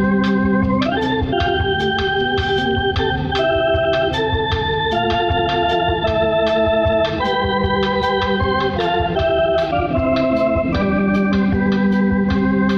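Two-manual electronic organ playing sustained chords that change every second or two, over a steady tapping beat.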